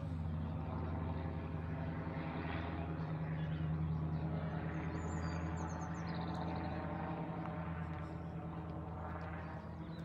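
Low, steady engine drone of a propeller aircraft passing overhead, swelling towards the middle and slowly fading. A bird chirps briefly about five seconds in.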